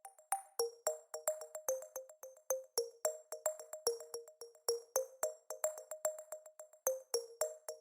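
Background electronic music: quick, plucked synth notes in a steady rhythmic pattern.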